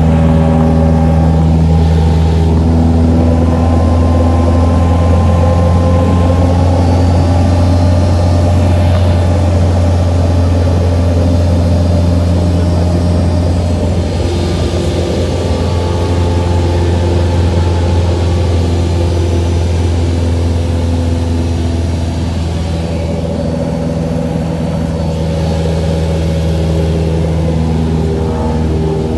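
Cessna light aircraft's piston engine and propeller droning loudly inside the cabin in flight, steady, with the pitch shifting slightly now and then.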